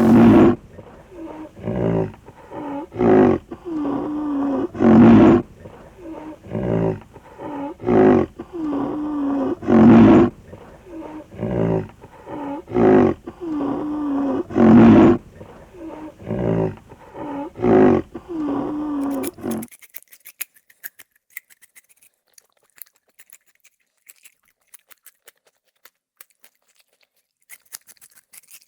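A large animal calling over and over, a loud call every one to two seconds, each with a low pitched tone, until the calls stop abruptly about twenty seconds in; faint high ticking follows.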